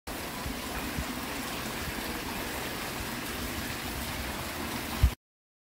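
Water pouring from the two spouts of a stone wall fountain and splashing into its small pool, a steady rushing spatter. A short low thump comes just before the sound cuts off suddenly about five seconds in.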